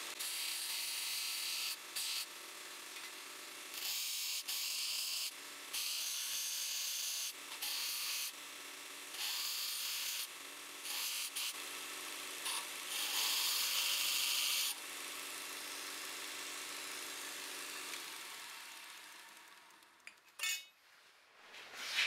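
Belt grinder running with a narrow belt over a small contact wheel, with repeated hissing grinding passes of a second or two as a steel knife tang is pressed to the belt. Near the end the grinder winds down to quiet.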